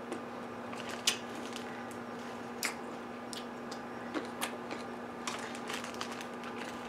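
A person chewing red grapes: a few scattered wet clicks and squishes from the mouth, over a steady low hum.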